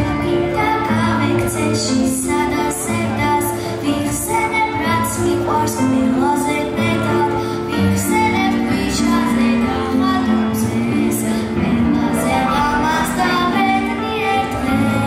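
A young girl singing a melody into a microphone, her voice amplified over instrumental accompaniment, with held notes.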